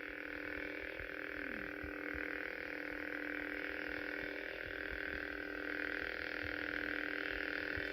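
Background outro music: a sustained electronic drone of several held tones, slowly getting louder.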